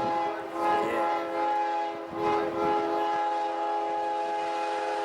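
Train air horn sounding a long, steady multi-note chord, with a brief break about two seconds in.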